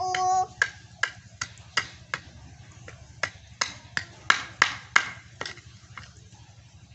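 Kitchen knife blade knocking against a hard ketapang (Indian almond) shell on a wooden board, trying to crack it open: about a dozen sharp, irregular knocks, closest together about four to five seconds in.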